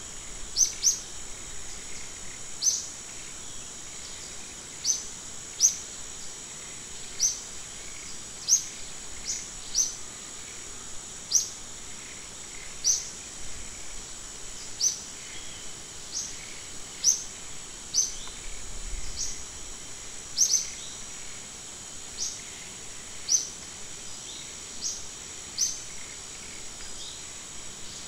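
A bird repeating short, sharp, high chirps every second or two, over a steady high-pitched insect drone.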